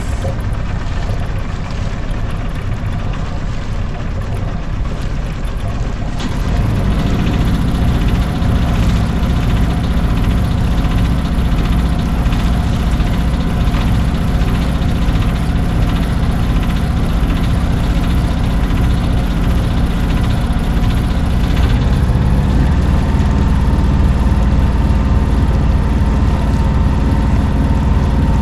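Sailboat's auxiliary engine running steadily as the boat motors out of harbor, with sails furled. Its low drone gets louder about six seconds in.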